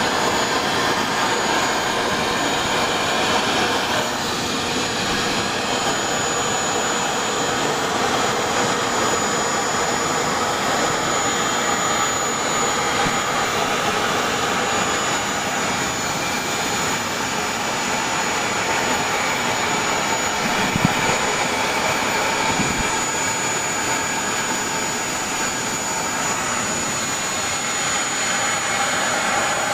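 Steady rushing noise of air driven by a fan or rotor, even throughout, with a faint high steady tone above it.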